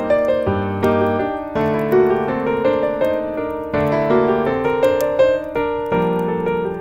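Piano music: gentle chords and melody notes struck one after another, each ringing and fading, the harmony changing about every second.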